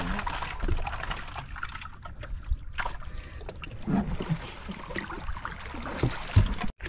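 Water splashing and slapping against a small canoe as a man wades alongside and climbs in over the side, with irregular knocks on the hull. There is a loud thump near the end.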